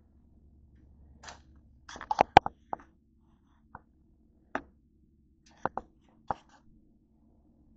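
Handling noise: a scatter of short clicks and knocks, a quick cluster of them about two seconds in and then single knocks every second or so.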